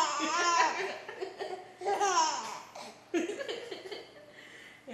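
A baby laughing, his first laughs, in three peals of laughter that die down near the end.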